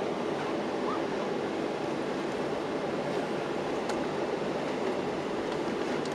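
Steady rushing hum inside a Boeing airliner's cabin as it taxis after landing: the idling jet engines and cabin air blending into one constant noise.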